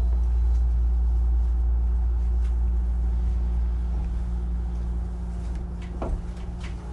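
Hankyu 9000 series electric train running, heard from on board: a steady low rumble of motors and wheels on the rails that eases off in loudness over the last few seconds, with a single short knock about six seconds in.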